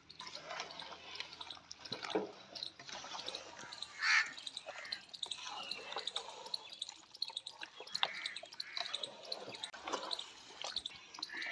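Wet squelching and squishing of a hand kneading raw chicken pieces through a thick yogurt-and-cream green marinade in a large metal pot, in irregular strokes.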